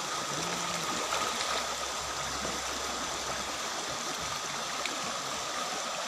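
Shallow waterfall stream rushing steadily over rocks.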